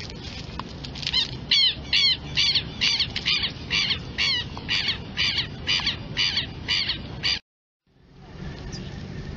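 Southern lapwing giving loud, repeated alarm calls, about two a second, cut off abruptly about seven seconds in.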